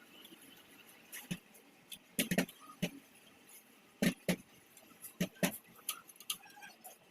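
Irregular light clicks and knocks, a dozen or so, some in quick pairs and triplets: tools and metal parts being handled while working on a small engine.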